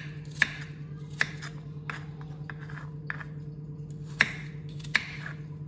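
Kitchen knife dicing peeled apple on a bamboo cutting board: sharp knocks of the blade meeting the board, irregular, about one a second.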